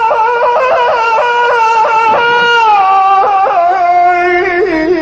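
A man's high solo voice singing an Azerbaijani mourning elegy, holding one long high note decorated with rapid trill-like pitch breaks, then sliding down about three seconds in and stepping lower near the end.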